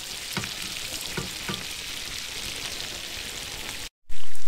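Bass fillets frying in butter in a skillet, a steady sizzle, with a few sharp clicks of a metal spatula against the pan in the first second and a half. Near the end the sound drops out for an instant and comes back much louder.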